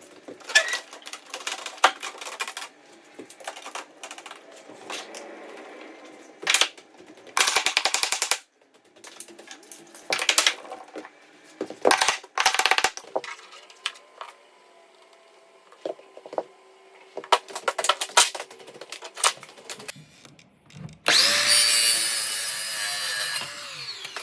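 Carpentry power tools working wood: a string of short tool bursts and knocks, then, about 21 seconds in, a longer and louder run of a motor that winds down near the end.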